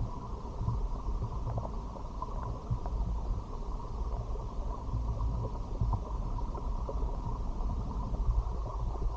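Muffled rumble of stream water heard with the camera submerged, with a few faint scattered ticks.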